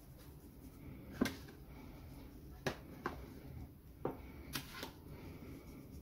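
Hands handling raw quails and sprinkling spice rub in a plastic food container, with about five short, sharp taps and clicks against the container spread through.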